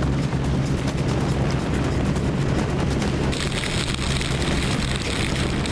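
Light aircraft's engine and propeller running loud and close, a steady low drone under rushing wind noise. A harsher high hiss joins about three seconds in.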